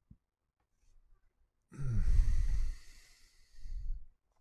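A man's long sigh about two seconds in: a breathy exhale carrying a low voiced tone that falls in pitch. A softer breath follows near the end.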